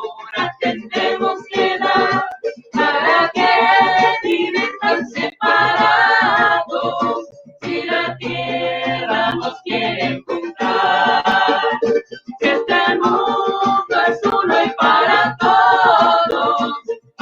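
A song sung by a solo voice with instrumental accompaniment.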